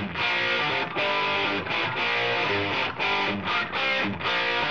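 Intro music: rock with distorted electric guitar.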